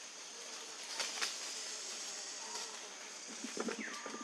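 Steady high-pitched insect drone, with a few clicks and rustles of dry leaves and a short falling squeak near the end.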